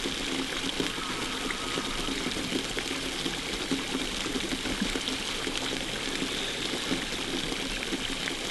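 Small pond fountain splashing steadily, its jet of water falling back onto the pond surface.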